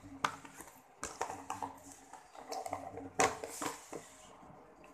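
Eating sounds: a spoon and fork clinking and scraping against a plate, with chewing, in a run of sharp clicks; the loudest about three seconds in.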